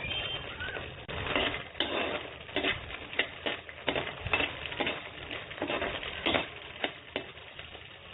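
Makhana (puffed lotus seeds) being stirred in a vessel, scraping and rustling in repeated strokes about twice a second.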